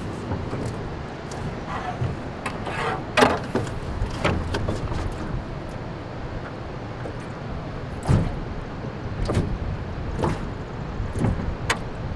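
A hand line hauled in hand over hand in a small boat: scattered short knocks and thumps against the boat over a steady low wind rumble.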